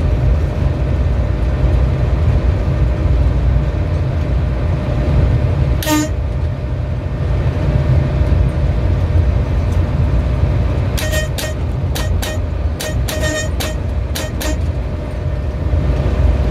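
Train running along the track with a steady low rumble. About six seconds in there is one short pitched toot. From about eleven to fourteen and a half seconds comes a quick irregular run of sharp clicks.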